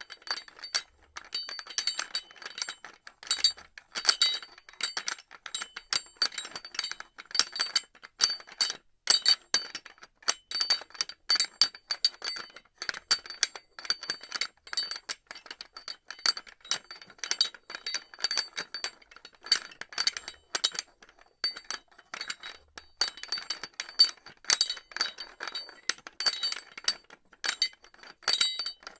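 Metal pulley clattering: a dense, irregular run of sharp metallic clinks and clanks with a high ringing note, continuing without pause.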